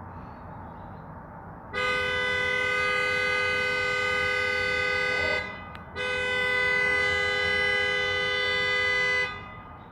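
Car horn sounding in two long, steady blasts of about three and a half seconds each, with a short break between, a two-note tone. The one recording it takes it for deliberate honking, not a car alarm.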